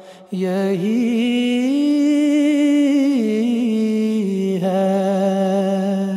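A male voice singing unaccompanied, drawing out the final notes of an Urdu nazm after a quick breath near the start. The long held notes step up about a second and a half in, then step back down twice.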